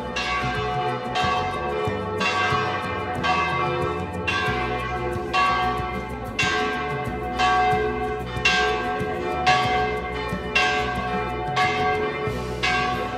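Church bells ringing, about one stroke a second, each stroke ringing on and fading into the next.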